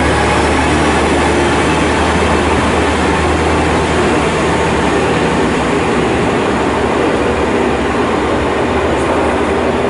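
KiHa 47 diesel railcar pulling away from a station platform: its diesel engine gives a low steady drone that fades about four seconds in as the train draws off, with wheel and rail noise throughout.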